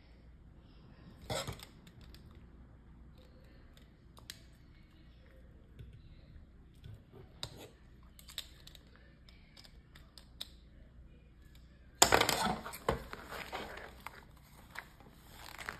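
Small plastic Lego bricks clicking and rattling as they are handled and pressed together, with scattered single clicks and a louder clatter of pieces about twelve seconds in.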